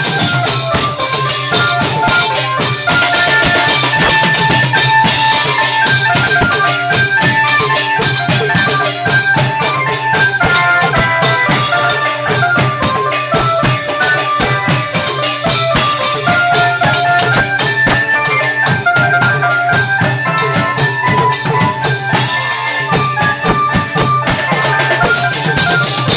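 Thai klong yao long-drum ensemble playing: a fast, steady beat of drums and small cymbals under a stepping melody line.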